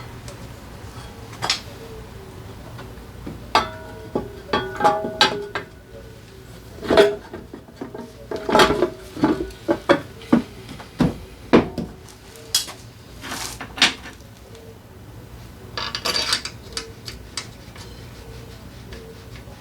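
Metal hand tools and drivetrain parts clinking and clanking against each other in a string of sharp knocks, several ringing briefly, over a steady low hum.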